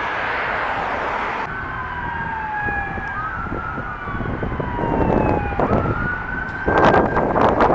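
Police car sirens wailing, their pitch sweeping slowly up and down, with two siren tones sounding at once in the middle. A loud burst of rushing noise comes near the end.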